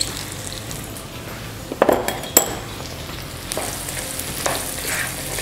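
Chopped onion and garlic sizzling in oil and butter in a nonstick wok, with a spatula stirring and a few sharp clinks against the pan about two seconds in.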